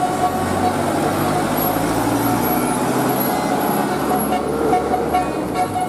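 A motor vehicle's engine running steadily under a dense, noisy background; the low hum fades near the end.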